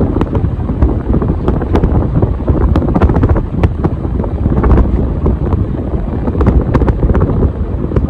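Strong air buffeting from the blades of a 50-inch Casablanca Delta II ceiling fan running close over the microphone, a loud, rough, steady rush with scattered sharp clicks.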